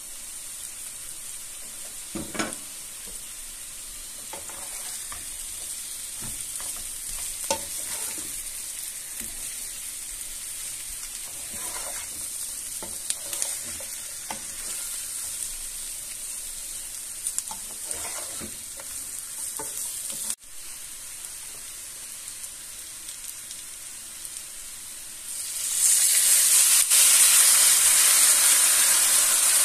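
Sliced potatoes and onions sizzling in oil in a frying pan, with a spatula scraping and tapping in the pan now and then as they are stirred. Near the end, broth poured into the hot pan sets off a sudden, much louder hiss.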